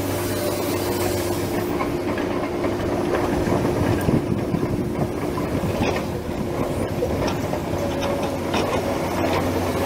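Radio-controlled model excavator's motors running with a steady hum as it digs and swings its bucket, with scattered clicks and rattles of soil and moving parts in the second half.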